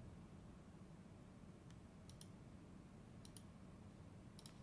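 Near silence, with several faint computer mouse clicks, some in quick pairs.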